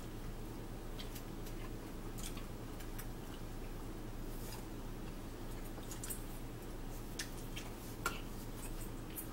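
Close-up chewing of pizza with small wet mouth sounds and light clicks scattered through, over a steady low background hum; a sharper click stands out near the end.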